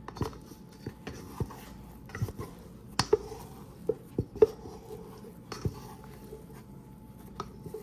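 Dough scraper working risen bread dough out of a bowl: soft scraping with irregular knocks and taps of the scraper against the bowl.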